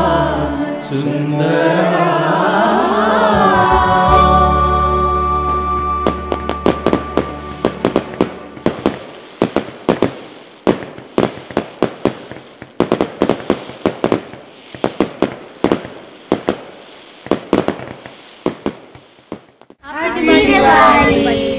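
A sung song with music ends on a held note, then a long string of firecracker bangs and crackles follows, irregular and fading over about twelve seconds. Near the end, voices come in.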